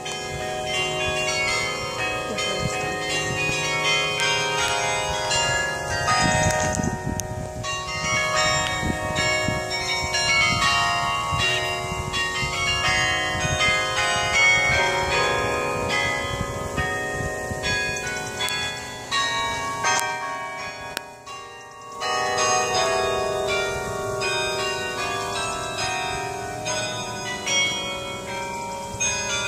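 Carillon bells playing a tune: many bronze tower bells struck in quick succession, their long rings overlapping. The playing falls off into a brief lull about two-thirds of the way through, then picks up again.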